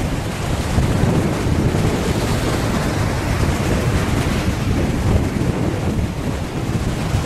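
Strong wind buffeting the microphone in a steady low rumble, over the hiss of surf breaking on the beach.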